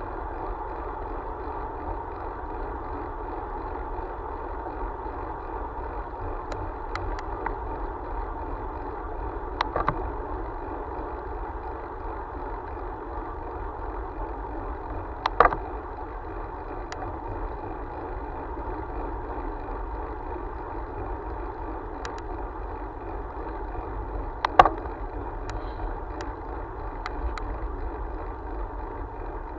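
Steady rolling and wind noise of a ride along a paved road, picked up by a camera on the moving vehicle, with a few sharp knocks, the loudest about fifteen and twenty-five seconds in.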